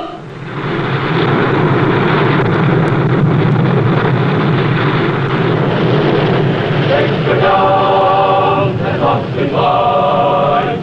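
Loud rushing water and spray as a submarine surfaces. About seven seconds in, the theme music takes over with long held chords of male voices.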